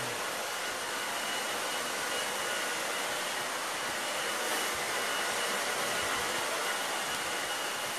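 Handheld hair dryer running steadily, blowing hot air over a freshly painted wooden table top to dry it, with a faint steady high whine over the rushing air.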